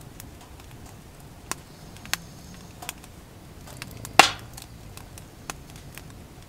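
Quiet outdoor ambience: a faint low hum with scattered sharp pops and clicks, one louder crack about four seconds in.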